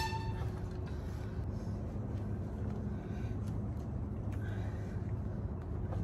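Steady low outdoor rumble, with a few faint metallic clicks as a slack roller chain is worked by hand on a gate operator's sprocket.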